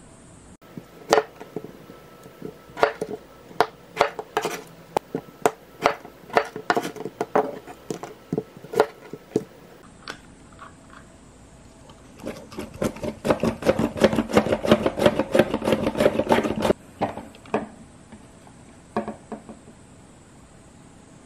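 Kitchen work knocking on a hard surface: scattered sharp knocks for several seconds, then about four seconds of fast, steady knocking, then a few more knocks.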